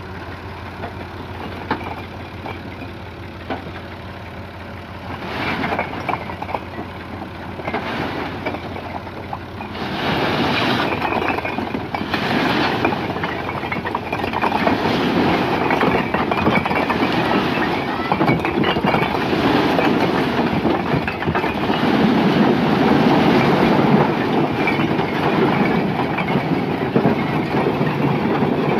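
Tractor engine running steadily while a load of fired clay bricks slides off a tipped trolley bed and clatters onto a pile. The clatter comes in short spurts about five seconds in, then becomes a continuous loud rush of tumbling bricks from about ten seconds on.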